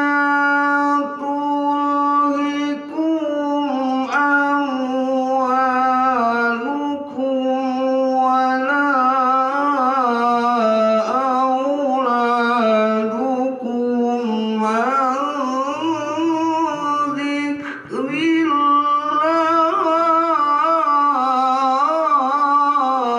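A man's voice reciting the Quran in a melodic, drawn-out tilawah style into a microphone. He holds long notes with wavering, ornamented pitch runs and breaks briefly for breath several times.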